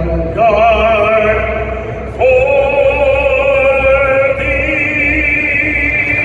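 Operatic male voice singing a national anthem over the arena sound system: three long held notes with wide vibrato, moving to a new note about two seconds in and again about four seconds in.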